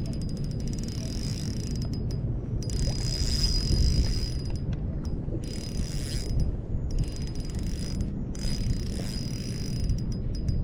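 Fishing reel being cranked in several spurts, a thin whirring click as line is wound in, stopping briefly between turns, over a low wind rumble.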